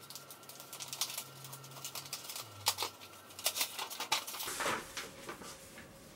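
Paper wrapping being carefully unfolded and peeled open from a book: scattered crinkles and rustles, with a few sharper crackles.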